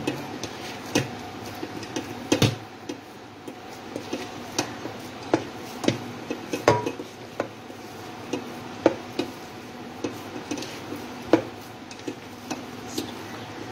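Hands kneading soft bread-and-milk dough in a steel pot, the hands knocking and tapping irregularly against the metal. A faint steady hum runs underneath.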